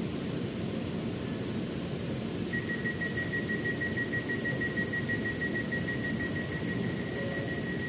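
MRT metro train running: a steady rumbling ride noise. About two and a half seconds in, a thin, steady high whine joins it and holds.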